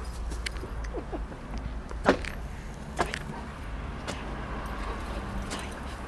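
Two dogs play-fighting on grass: scuffling with a few sharp short clicks or yips, the loudest about two seconds in and another about a second later, over a steady low rumble.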